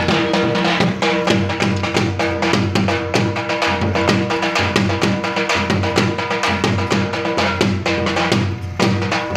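Dhol drums played in a fast, dense rhythm, with a steady pitched tone running underneath and a brief break about eight and a half seconds in.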